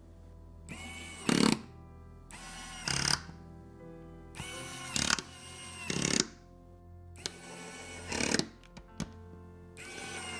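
Electric precision screwdriver driving tiny LCD retaining screws. It runs in about six short bursts, one per screw, each a brief whine that gets loudest at its end.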